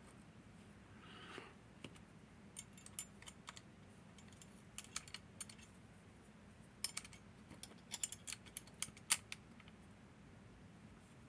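Small metal clicks and clinks of a disassembled Hori 1601 lever padlock's parts being handled and set down, in scattered short clusters that are busiest in the second half.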